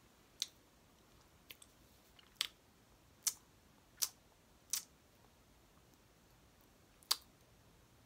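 Mouth smacking from someone chewing with their mouth open: a string of short, sharp wet smacks, roughly one a second for the first five seconds, then one more near the end.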